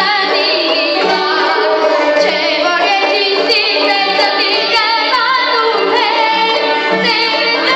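Armenian folk-pop song: a heavily ornamented, wavering melody line over a steady low beat.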